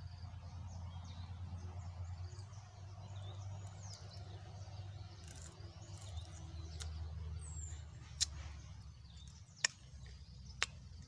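Faint birds chirping over a steady low rumble, with a few sharp clicks in the second half.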